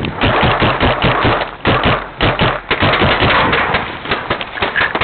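Running footsteps: a rapid, uneven series of thuds over a rustling haze, with a brief pause a little under two seconds in.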